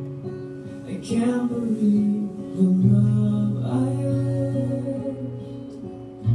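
A gentle song: acoustic guitar with a singing voice, the notes held long.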